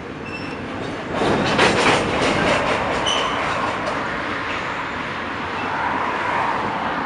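Empty ore wagons of a freight train rolling past. Wheels clack over the rail joints in a quick run of knocks from about a second in to about four seconds, over a steady rumble, with a few short high squeaks.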